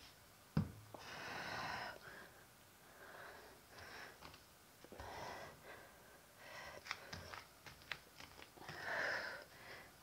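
A person breathing during a stretching exercise: about five long, faint breaths, with a few soft knocks of hands and feet on an exercise mat.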